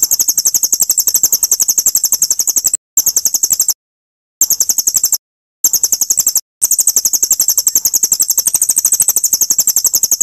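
A songbird's very high-pitched, rapid pulsed trill, delivered in several long phrases broken by short pauses.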